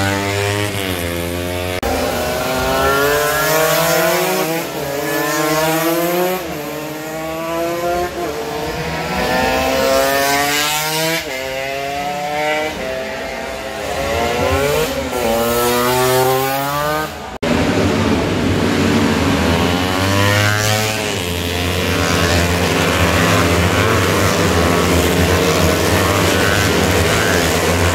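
Small-displacement racing motorcycles passing at full throttle, the engine pitch climbing and dropping again and again as the riders change gear. About two-thirds of the way through there is a sudden break, then several bikes run together in a pack as a dense, steady blend of engines.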